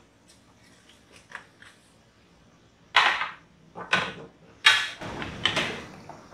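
Kitchen clatter of a metal plate and utensils: three sharp knocks about three, four and nearly five seconds in, then a rougher scraping clatter for about a second.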